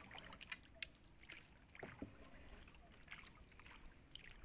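Faint paddling of a small boat: a wooden paddle dipping into calm water, with small irregular splashes and drips.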